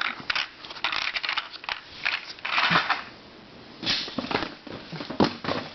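Packaged puzzles being handled: short bursts of plastic packaging crinkling and rustling, with scattered clicks and taps.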